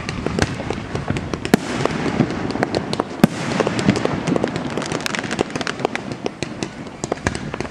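Fireworks display: a rapid run of aerial shell bursts and crackling. Two sharper, louder bangs stand out, about a second and a half and about three seconds in.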